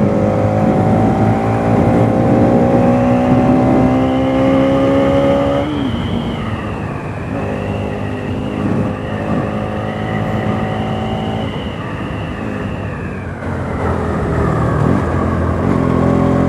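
Bajaj Pulsar NS200's single-cylinder engine pulling under way. Its pitch climbs steadily for about five seconds, then drops sharply at a gear change. It holds steady, eases off, and picks up again near the end.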